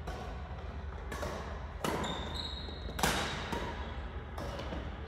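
Badminton rally: rackets hitting a shuttlecock back and forth, a string of sharp cracks about once a second.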